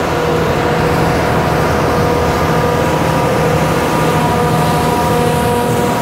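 John Deere 8430 tractor pulling an Amadas peanut combine, the engine and picker running steadily together. A constant low hum with a few steady higher tones sits over a wide, even rushing noise.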